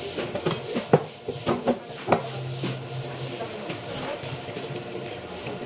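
Wet fish and tools knocking and slapping on a cutting board as a large red grouper is cleaned: a cluster of sharp knocks, the loudest about a second in and again about two seconds in, then quieter handling.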